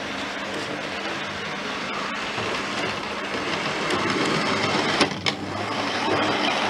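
Model HST (Class 43 power car) train with Mark III coaches running along the model railway track. Its motor and wheels make a steady whirring rumble that grows louder as it passes close by, with a few sharp clicks about five seconds in.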